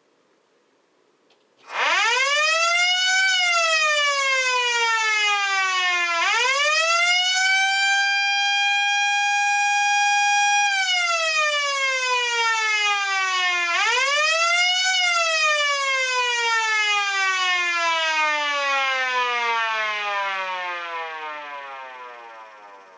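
Federal Model A electric siren sounding an attack signal. It rises to a loud wail, falls, rises again and holds a steady pitch for about three seconds, falls, rises once more, then winds down in a long falling glide that fades out.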